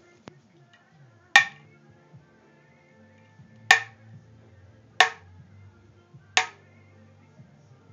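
Taut tennis racket strings being cut out one at a time, each cut giving a sharp snap with a brief ringing ping. Four snaps come one to two seconds apart.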